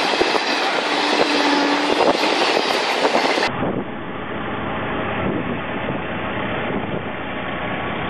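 Passenger train coaches rolling past, the wheels clicking over the rail joints. About three and a half seconds in it cuts abruptly to street traffic, with an auto-rickshaw's small engine running steadily.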